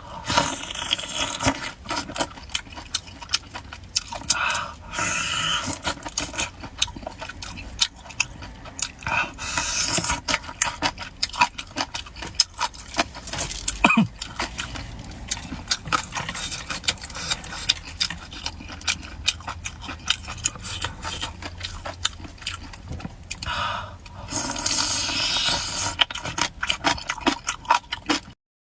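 Close-miked eating sounds: a steady run of wet chewing and lip-smacking clicks, with a few longer noisy stretches of slurping or sucking, three times in all. The sound cuts off abruptly about a second before the end.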